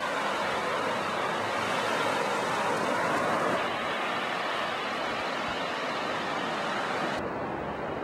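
Ocean surf washing on the beach: a steady, even hiss that swells a little through the middle and eases near the end.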